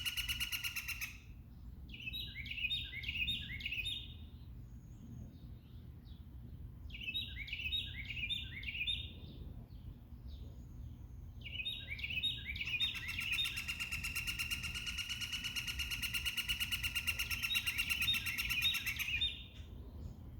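Songbirds singing: phrases of four or five quick down-slurred whistled notes repeat several times, and a long rapid buzzy trill runs through the second half, over a low steady background rumble.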